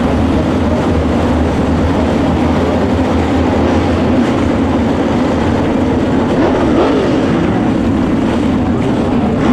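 A pack of USRA B-Modified dirt-track race cars' V8 engines running together at speed, a loud steady din with individual engines rising and falling in pitch as they work through the turn.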